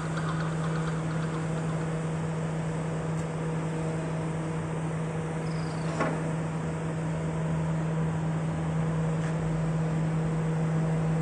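A steady low-pitched hum, with one sharp click about six seconds in.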